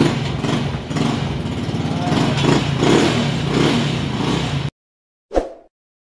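KR125 motorcycle engine running steadily, cutting off abruptly about four and a half seconds in, with a single short thump a moment later.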